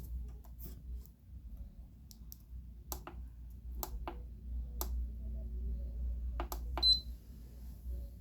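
Scattered sharp clicks, the loudest with a short high beep about seven seconds in, over the steady low hum of a running wall air conditioner.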